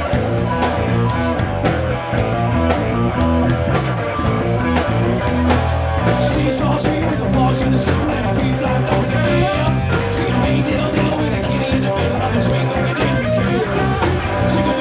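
A live rock band playing electric guitars and a drum kit, with regular cymbal hits over a steady low bass line.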